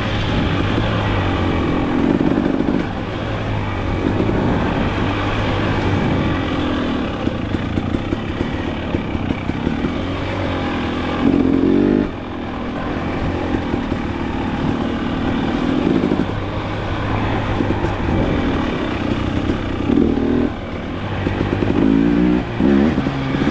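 Two-stroke dirt bike engine of a 2023 Husqvarna TX300 running under way, revving up and down with the throttle. There is a sharp rise in revs about halfway through and several quick revs near the end.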